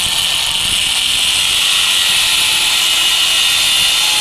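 Cordless DeWalt angle grinder with a cut-off disc running at full speed and cutting through a thin steel key, a steady high-pitched grinding hiss with a steady whine under it.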